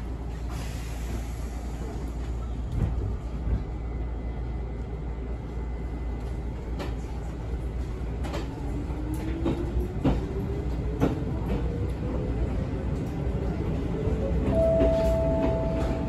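Izuhakone Railway 7000 series resistance-controlled electric train pulling away, with scattered clicks over steady running noise. From about halfway through, the traction motor whine rises steadily in pitch as the train accelerates. A steady tone sounds near the end.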